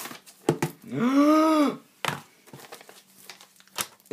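Cardboard mailer packaging being handled and opened: scattered sharp clicks and knocks. About a second in there is a brief, louder pitched sound that rises and then falls.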